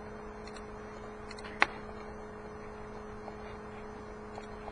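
Steady low electrical hum, with one sharp click about a second and a half in and a few faint ticks.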